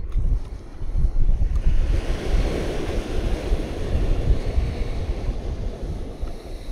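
Wind gusting across the microphone with an uneven low rumble, and the wash of waves on the shore swelling in about two seconds in.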